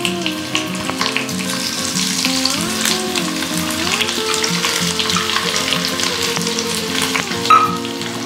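Crumbled boiled potatoes sizzling and crackling in hot oil in a frying pan. A steady hiss with many small pops runs throughout, under background music with a stepping melody.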